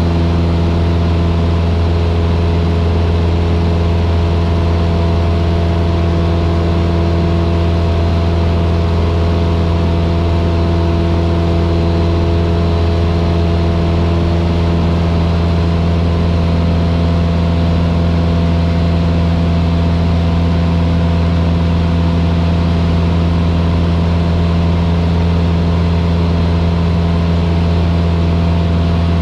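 Cessna 152's four-cylinder Lycoming engine and propeller running steadily in flight, a loud, even drone heard inside the small cockpit.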